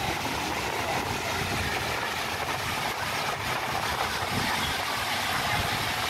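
Steady rushing and splashing of a large multi-jet fountain, with a low, uneven rumble beneath.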